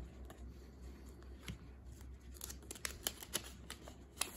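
Trading cards being handled and set down, then a foil booster pack being pulled open: light flicks, clicks and crinkles, busier in the second half, with the sharpest snap near the end.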